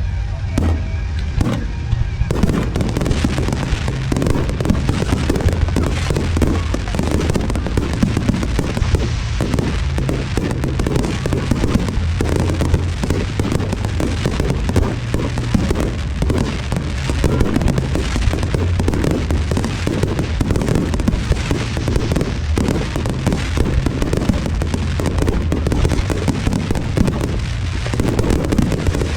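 Fireworks display in full barrage: shell bursts and crackling going off in rapid, overlapping succession. The firing thickens into a dense, unbroken volley about two seconds in.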